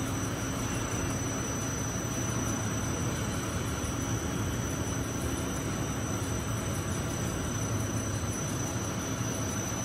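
Steady running noise of wire drawing machinery in a factory hall: a continuous low hum with a thin, high, steady whine above it, with no starts or stops.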